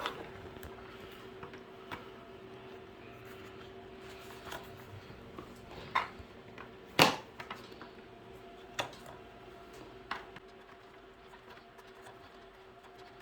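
Scattered clicks and knocks of hard plastic parts being handled while chicken watering cups are fitted and threaded into a 5-gallon plastic bucket, the loudest a sharp knock about seven seconds in. A faint steady hum runs underneath.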